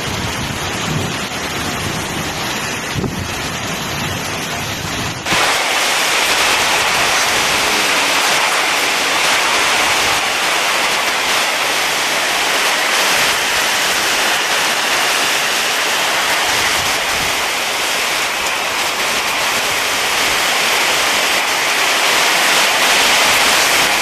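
Heavy downpour of rain with strong wind, a dense steady hiss. About five seconds in it changes suddenly to a louder, brighter rush of rain.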